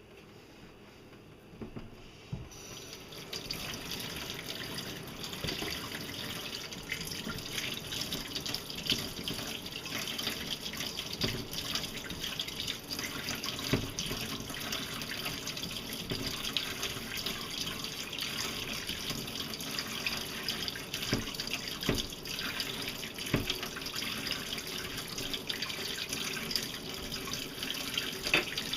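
Tap water running into a sink, starting a couple of seconds in, as cooked taro is rinsed and its skin washed off under the stream, with a few light knocks.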